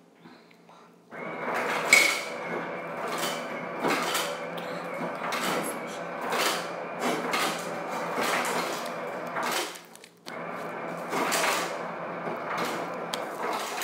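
Very sticky slime being squished and stretched by hand, a continuous wet, sticky crackling full of irregular little pops and clicks. It starts about a second in and breaks off briefly near ten seconds.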